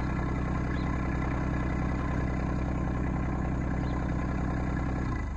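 RK25 compact tractor's diesel engine idling steadily, then shut off about five seconds in, the engine sound cutting out abruptly.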